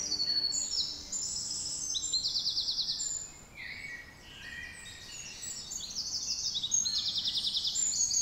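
Wild birds chirping and trilling, several calls overlapping, with quick trills of rapidly repeated notes about two seconds in and again near the end.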